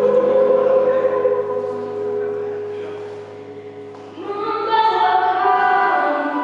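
A choir of young voices sings a long held chord that fades away, then comes back in with a new phrase about four seconds in.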